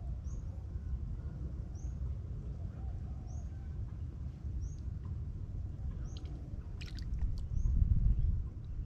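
Hands groping through shallow muddy water and soft mud while feeling for crabs in their burrows: low sloshing noise that grows louder near the end, with a few sharp clicks about seven seconds in. A short high chirp repeats about every one and a half seconds.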